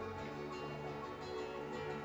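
Background music: plucked acoustic guitar playing a soft, steady melody.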